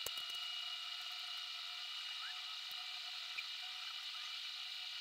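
Steady low-level background hiss with several faint, steady high whining tones, and a few faint clicks right at the start.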